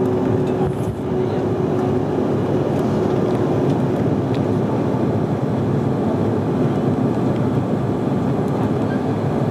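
Cabin noise of a Bombardier CRJ-900LR at takeoff thrust through liftoff and initial climb: a loud, steady roar from its two rear-mounted GE CF34 turbofans and the airflow. A steady tone under the roar fades out about four seconds in.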